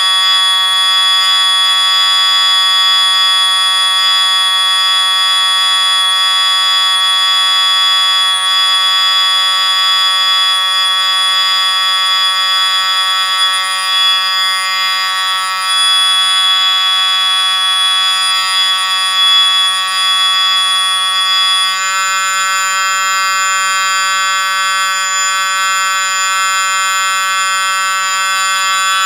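Loud, steady drone of many held high-pitched tones sounding together, with no rhythm or breaks. About 22 seconds in, the set of tones shifts abruptly to a new chord.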